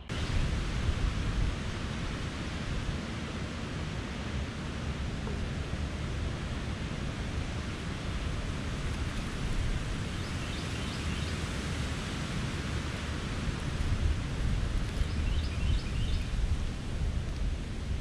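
Steady rushing wind noise on the camera microphone, with a restless low rumble. Faint, short bird chirps come through a few times, around the middle and again near the end.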